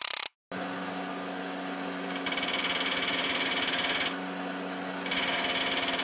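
Bench belt sander running steadily, with a louder grinding hiss as the steel end knob of a new vice handle is pressed against the belt, about two seconds in until about four seconds, and again from about five seconds.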